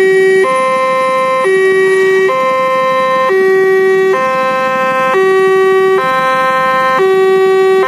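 Railway level crossing alarm sounding its low-pitched electronic two-tone warning. A lower and a higher tone alternate, each held about a second, in an even, unbroken cycle that signals a train is approaching.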